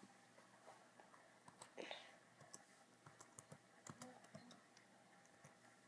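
Faint keystrokes on a laptop keyboard: a loose, irregular run of light clicks as a search is typed.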